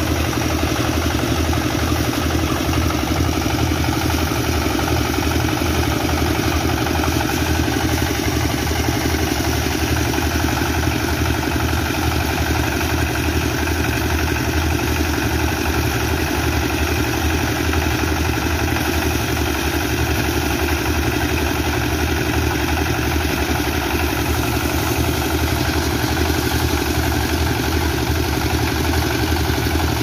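Small horizontal single-cylinder diesel engine running steadily with a fast even pulsing beat, driving a rice threshing machine while sheaves of rice are fed into it.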